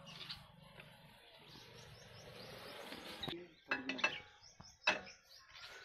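A few sharp metallic clinks, the loudest about four and five seconds in, over a low hiss and background bird chirping.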